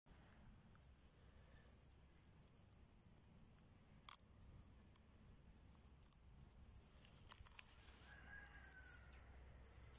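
Near silence with faint, short, high bird chirps repeating every second or so, and one sharp click about four seconds in.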